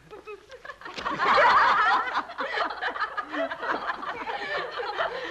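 A group of students laughing and snickering in a classroom, many voices at once. The laughter swells loudly about a second in, then carries on more quietly.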